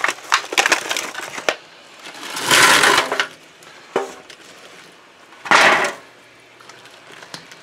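Fried chicken pieces tipped from a bowl into a steel wok of hot honey sauce and stirred with a spatula: a run of clicks and scrapes against the wok, then two loud hissing rushes, about two and a half and five and a half seconds in.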